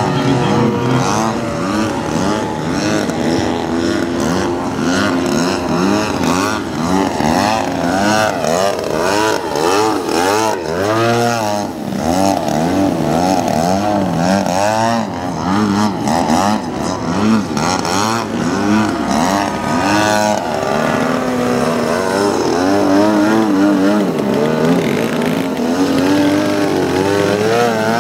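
Engine and propeller of a giant-scale 89-inch Slick radio-controlled aerobatic plane, its pitch swinging up and down again and again as the throttle is worked through low passes and manoeuvres.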